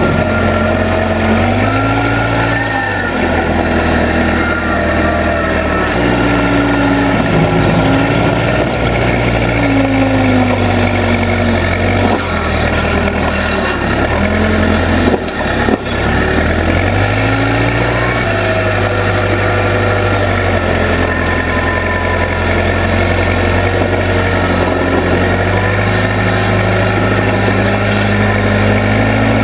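Case 580B backhoe engine running under working load, its pitch sagging and recovering several times as it takes load, with a brief drop about halfway through.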